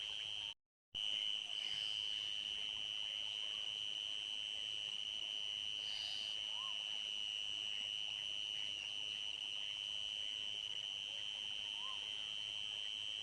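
A chorus of insects, likely crickets, gives a steady high-pitched trill. The sound cuts out completely for a fraction of a second near the start. Two faint short rising-and-falling calls come through, one midway and one near the end.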